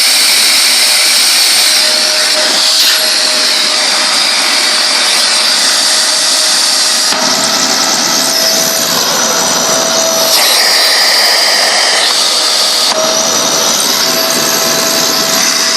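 Hoover Alyx 2000-watt vacuum cleaner motor running with a steady whine, its tone shifting around 7, 10 and 13 seconds in as the airflow changes. The owner puts its unhealthy, popping sound down to the motor, perhaps arcing.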